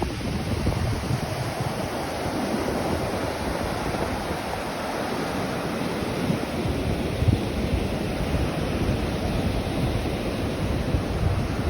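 Atlantic Ocean surf washing steadily, with no single wave standing out, and a low wind rumble on the microphone.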